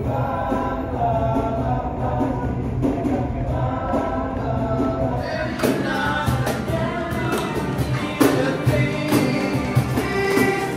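Music, then from about five seconds in a group of people singing together to acoustic guitars and a cajon, with sharp beats from the percussion.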